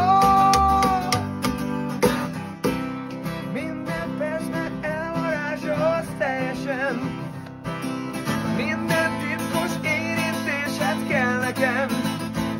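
Rockabilly instrumental break: acoustic guitar strumming over upright double bass, with a wordless, bending lead melody above them. A held two-note tone opens it.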